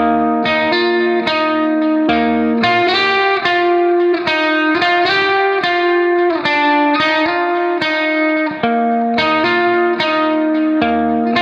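Background music: a plucked guitar playing a steady run of notes.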